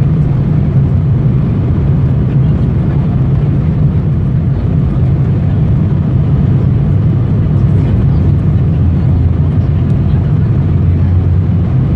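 Embraer E175 jet at takeoff thrust heard from inside the cabin during the takeoff run: its two GE CF34 turbofans make a loud, steady rumble and roar. Near the end the low drone shifts lower in pitch.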